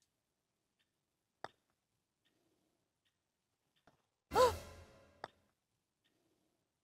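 A single light click as a putter strikes a golf ball. About three seconds later comes a person's drawn-out vocal exclamation, falling in pitch, with another soft click just after it.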